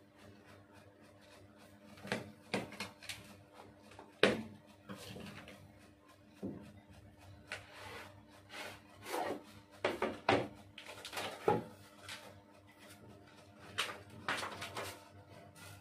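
Manual die-cutting press being handled: irregular knocks and short sliding scrapes, with a sharp knock about four seconds in and a run of louder strokes around ten seconds in.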